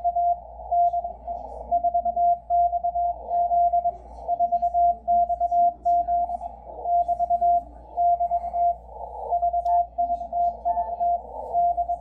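Morse code (CW) from the 4XZ Haifa maritime radio station, heard on a Yaesu FTdx10 shortwave receiver at 6607 kHz: a single steady mid-pitched beep keyed in dots and dashes, sending the repeated 'VVV DE 4XZ' call to all stations. It comes through a narrow 500 Hz CW filter, so only a thin band of static hiss surrounds the beep.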